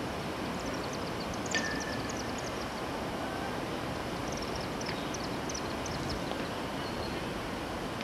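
Small birds chirping in two quick runs of high, short notes, about a second in and again around five seconds in, over a steady rushing outdoor noise.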